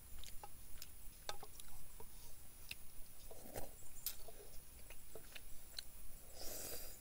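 Light scattered clicks and scrapes of a wooden utensil against a stainless steel camp mug, with chewing as food is eaten from it. Near the end there is a short slurp from the mug.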